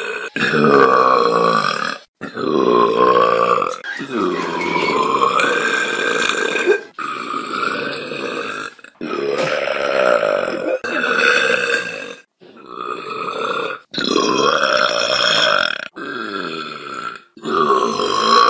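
A young woman's long, drawn-out burps, about ten in a row, each lasting one to three seconds, with brief silent breaks between them.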